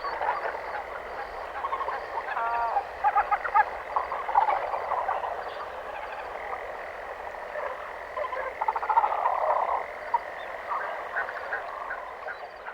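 A chorus of frogs croaking, many short overlapping calls over a steady high tone.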